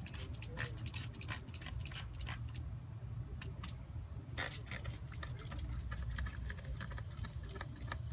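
Soapy water bubbling and crackling at a leaking brass air-line fitting on an air compressor governor: many irregular fast clicks and pops, the sign of compressed air escaping at the fitting. A low steady rumble runs underneath.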